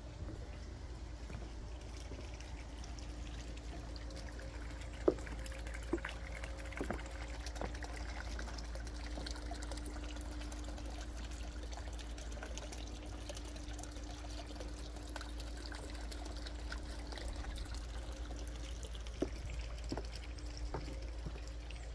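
Steady trickling water with a faint steady hum, broken by a few sharp clicks, the loudest about five seconds in.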